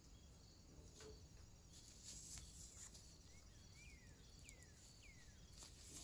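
Near silence: faint room tone with a few soft clicks, and four faint, short chirps falling in pitch from a bird in the distance, about a second or less apart, through the middle of the stretch.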